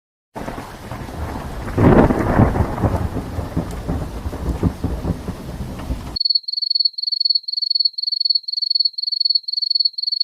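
A thunderclap crashing about two seconds in, over a steady rain-like hiss, that cuts off suddenly. A high electronic beep then repeats quickly, about three beeps a second.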